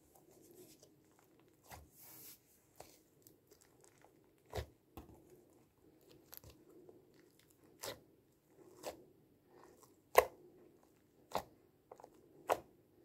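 Stiff blue PVA-glue slime being squeezed and folded by hand, giving sharp pops and clicks about once a second, the loudest about ten seconds in. The slime is stiff, which the maker puts down to overactivating it.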